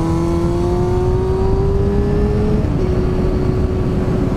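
Motorcycle engine pulling under acceleration, its pitch climbing slowly, then a short break about two and a half seconds in, after which it holds a steady pitch. Underneath is a constant low rush of wind noise.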